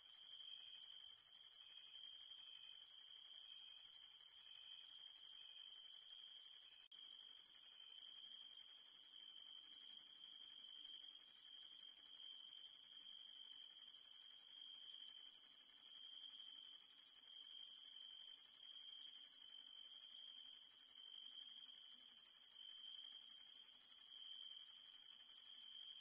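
A night insect chorus of crickets: a steady, unbroken high-pitched trilling in two pitches, one shrill and one lower. The sound cuts out for an instant about seven seconds in.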